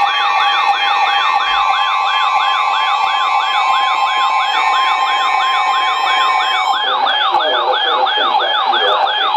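Electronic siren-style alert tone that swoops up and down about three times a second, laid over the steady two-tone Emergency Alert System attention signal. The steady tones cut off about seven seconds in, and the swooping tone carries on.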